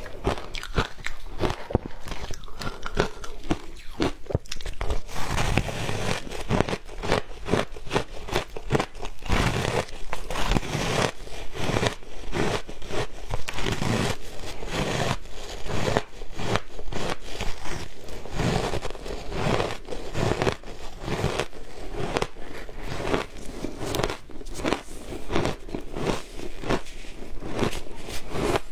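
Someone biting and crunching frozen matcha ice: a dense, unbroken run of sharp crunches with chewing between them.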